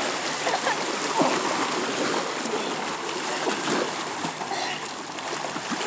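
Swimmers splashing and kicking in lake water, with steady sloshing and many small, quick splashes.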